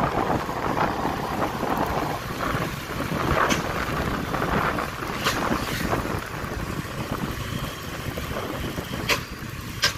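A motorcycle riding along at speed: steady wind rush over the microphone with engine and road noise underneath, and a few brief clicks.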